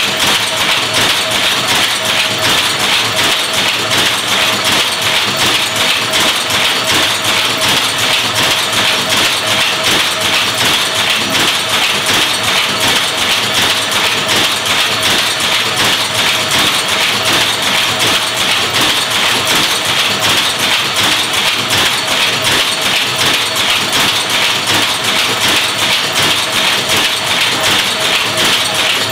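Lancashire power loom running: the shuttle being picked across and the sley beating up in a rapid, even clatter that does not let up, with a steady tone underneath.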